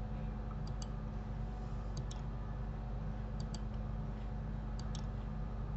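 Computer mouse clicking: four short double clicks, about one every second and a half, over a steady low electrical hum.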